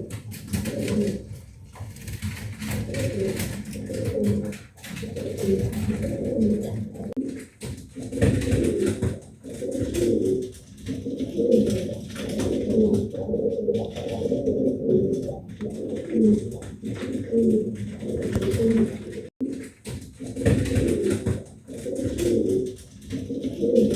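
Domestic pigeons cooing: low phrases repeated one after another with short breaks.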